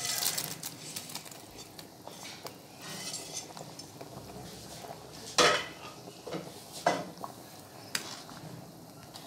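A metal spoon clinking and scraping against a cooking pot as fried potatoes are added to a simmering chickpea curry and stirred in. There are several sharp knocks; the loudest comes about five seconds in.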